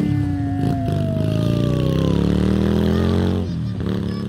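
A motorcycle engine running close by, its pitch shifting up and down as it revs, with a slowly falling tone as it moves past and a brief dip about three and a half seconds in.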